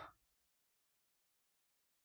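Near silence: the last of a man's spoken word fades out right at the start, then dead silence.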